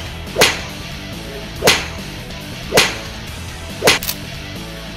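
Four sharp, whip-like cracks about a second apart, over faint background music.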